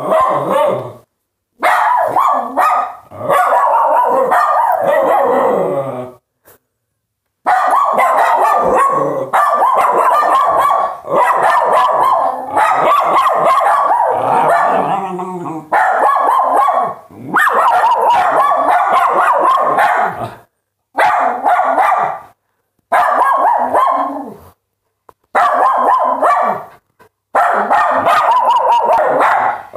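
Small dogs barking hard and fast, in long volleys of rapid yaps with short pauses every few seconds.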